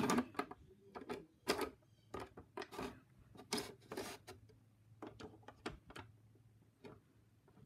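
Irregular plastic clicks, taps and knocks as the sliding doors of a toy horse stable are pushed open along their track and a small plastic rider figure is handled against them.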